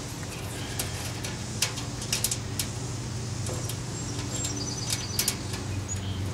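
Scattered light clicks and taps from a hand refitting and screwing down a stainless-steel grill front panel, over a steady low hum.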